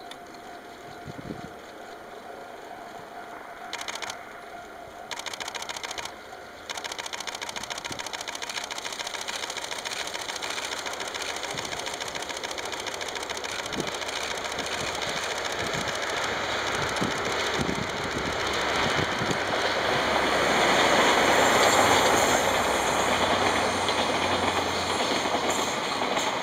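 Double-headed DD51 diesel-hydraulic locomotives and their passenger coaches passing: a fast, even clatter of wheels over the rails and the diesel engines running. It grows steadily louder to a peak about three-quarters of the way through.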